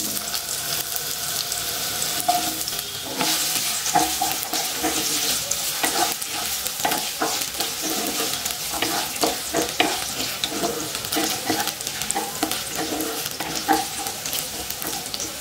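Potato chunks sizzling in hot mustard oil in a non-stick kadai, the sizzle starting suddenly as they go in. Throughout, a wooden spatula stirs them with repeated scrapes and taps against the pan.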